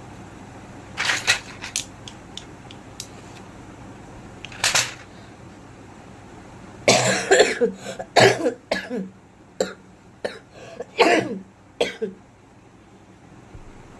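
A woman coughing from a bad cold and fever: single coughs about a second in and near five seconds, then a fit of repeated coughs from about seven seconds to twelve.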